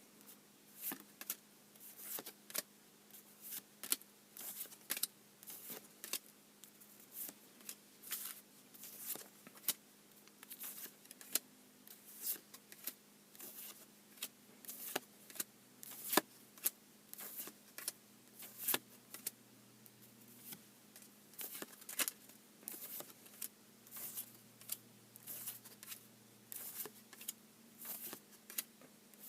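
Trading cards being handled and laid down one after another: a run of short, light clicks and slaps, about two a second, over a faint steady hum.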